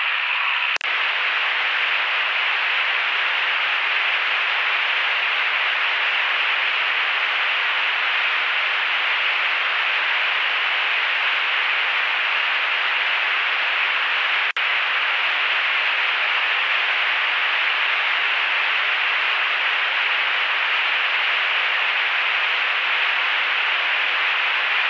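Steady hiss carried over a light aircraft's headset audio feed, thin and cut off in the bass, with a brief dropout about fourteen seconds in.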